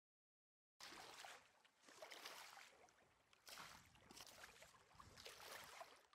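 Faint footsteps wading through shallow water, a slosh and splash with each step, starting about a second in.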